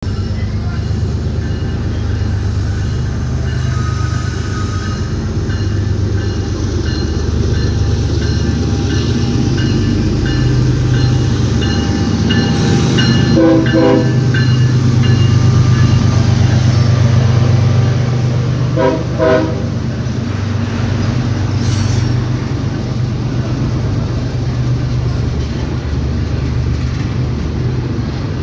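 A CPKC train with a heavy, steady diesel locomotive rumble throughout, and short, chopped blasts of the locomotive horn about halfway through and again a few seconds later.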